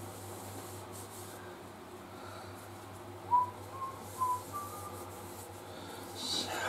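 Four short, faint whistled notes at about the same pitch, a little over a second in all, over a steady low hum. A brief rustle comes near the end.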